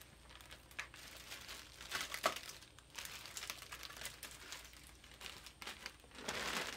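Clear plastic packaging crinkling as small plastic bags are handled, in irregular crackles that are louder about two seconds in and near the end.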